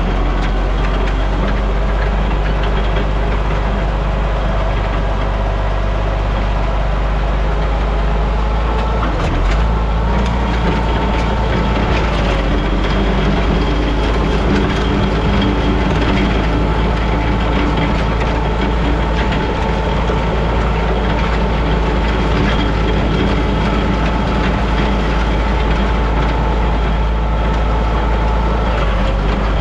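International Harvester 460 tractor engine running steadily, with a slight change in its note about ten seconds in.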